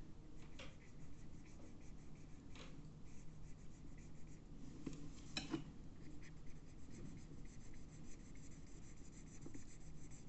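Blue felt-tip pen scratching on a paper workbook page in quick short strokes, colouring in a shape, with a few sharper ticks of the pen tip.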